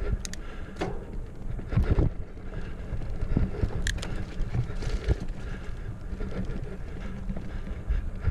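Mountain bike, a Specialized Stumpjumper Comp 6fattie, being ridden along a dirt trail: wind buffeting the chest-mounted microphone over the rumble of tyres rolling, with scattered sharp clicks and rattles from the bike.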